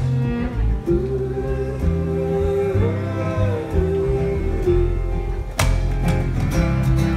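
Live folk band playing: a woman's voice holds one long note that swells up in pitch and back down, over acoustic guitar and electric upright bass. Sharper struck hits join in about five and a half seconds in.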